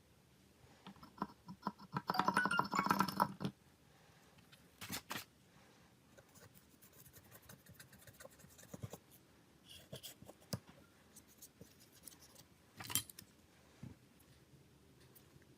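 Scattered clicks and taps of small parts and tools being handled during smartphone repair work, with a louder, dense rattling burst about two seconds in.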